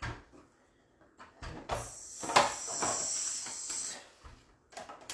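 Plastic clicks and knocks of a Pampered Chef Rapid Prep Mandolin being fitted together and set upright, with a hissing plastic scrape of about two seconds in the middle and a sharp click at its loudest point.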